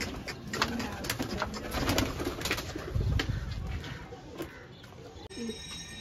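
Racing pigeons cooing, with many short sharp clicks and knocks over the first four seconds.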